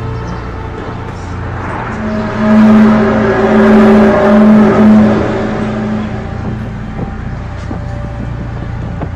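A loud, trumpet-like droning tone that swells up about two seconds in, wavers at its peak and fades out after about six seconds, over a steady low hum: the kind of 'strange sky sound' heard in viral apocalyptic-trumpet recordings.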